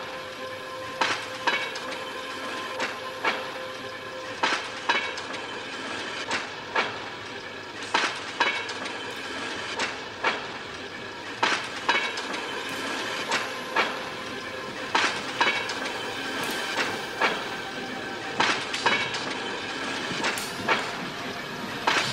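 Rail wheels of a motorised railway handcar clacking over rail joints in a steady rhythm: pairs of clacks about half a second apart, each pair coming roughly every 1.7 seconds, over a steady rumble and a faint ringing tone.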